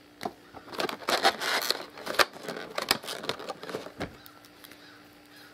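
Paper and cardboard packaging rustling and crinkling as a printed guide pack is lifted out of a phone box and handled, with a few sharp clicks; it dies down about four seconds in.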